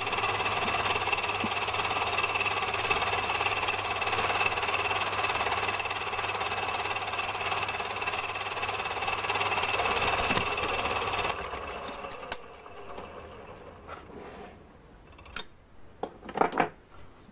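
Mini metal lathe running steadily, with a constant high whine from its motor and drive, while a drill in the tailstock chuck is fed into the spinning cast aluminium handwheel to start the centre hole. The machine shuts off suddenly about eleven seconds in. A few sharp metallic clicks and knocks follow as the tailstock drill chuck is handled.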